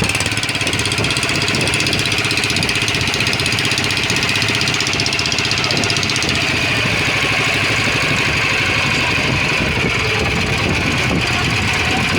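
Pumpboat engine running steadily at a constant speed.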